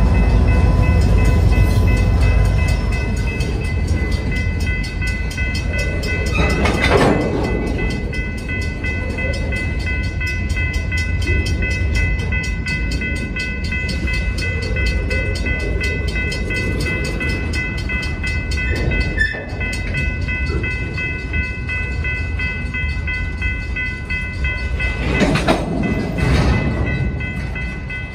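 Freight train rolling past close by: the heavy rumble of a CSX diesel locomotive fades after the first few seconds into the clatter of freight car wheels on the rails, with louder bursts of wheel clatter about a quarter of the way in and again near the end. A steady high-pitched ringing tone runs over it.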